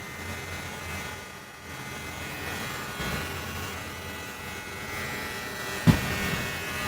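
Wmark NG-1060 electric hair clipper running with a steady buzzing hum. A short knock about six seconds in.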